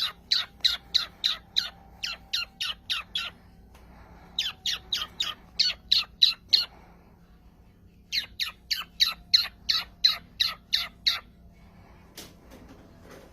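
Parrot squawking in three quick runs of short, harsh, repeated calls, about three or four a second, with pauses of about a second between runs.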